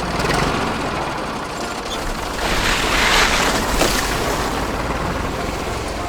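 A steady, engine-like running noise with a low rumble. It swells louder for about a second near the middle.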